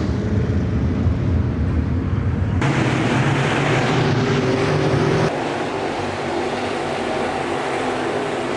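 Dirt-track race cars' engines running on the track, a steady loud drone. The sound changes abruptly twice, about a third and two-thirds of the way through.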